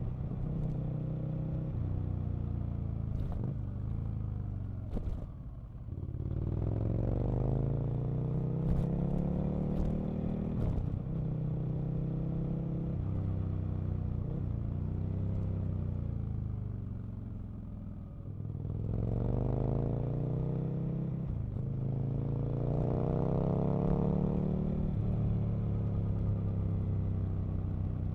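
Aprilia RSV Mille's 998 cc V-twin engine on a winding ride. It eases off twice, then pulls hard each time, its pitch rising through two upshifts in quick succession, with steady cruising between.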